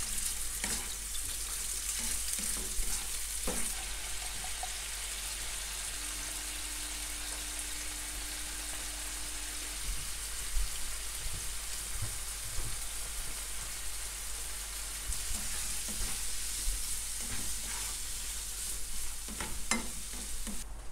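Shrimp frying in oil in a nonstick frying pan, a steady sizzle. A spatula knocks and scrapes against the pan a few times, most clearly near the end.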